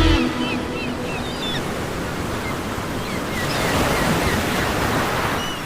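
Sea surf washing in a steady rush that swells about four seconds in, with scattered short high chirps over it.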